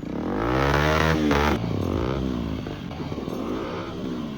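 Motorcycle engine revving up and falling back, about three revs in a row, each rising and dropping in pitch.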